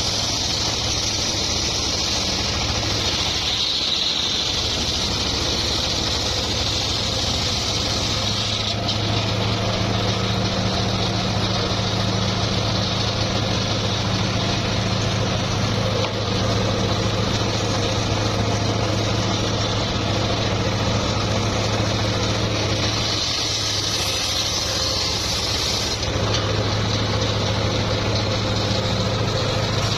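Engine of a homemade circular sawmill running steadily, a low even hum with a high hiss that swells and eases a few times.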